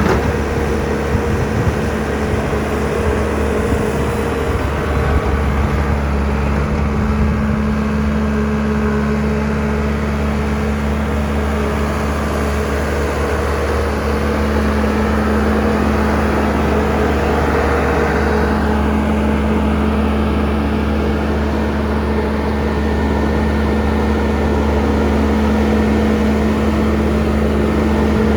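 Diesel engine of a 2015 Bobcat S650 skid steer running at a steady speed, with a constant low hum.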